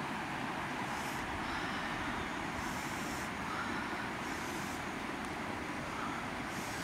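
Steady rushing background noise, with four short bursts of high hiss.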